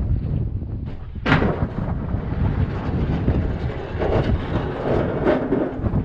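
Plow truck's engine running under a heavy, gusty rumble of wind buffeting the microphone, with a sharp clunk about a second in.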